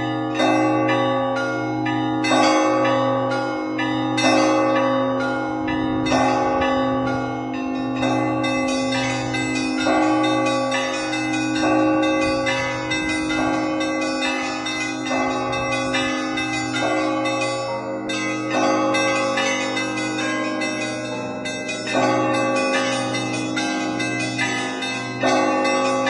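Russian Orthodox church bells rung in a festive zvon: a heavy bell struck about every two seconds, with its deep tone humming on, under a rapid, busy pattern of smaller, higher bells.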